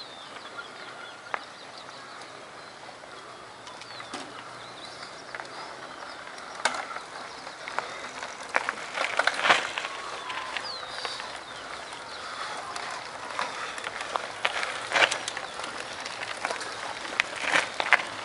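Mountain bikes coming closer over a rocky dirt trail: scattered sharp clatters and knocks of tyres and frames on loose stones, more frequent in the second half, with a bird chirping now and then.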